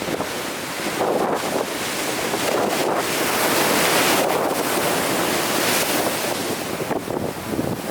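Big ocean surf breaking and washing up the shore: a wave's rush swells about a second in, is loudest around the middle, then eases off toward the end.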